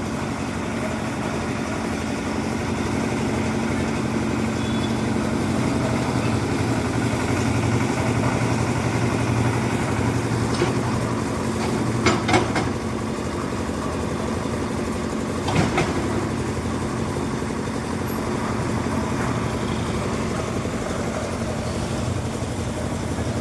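Concrete mixer's engine running steadily, with two brief knocks about halfway through.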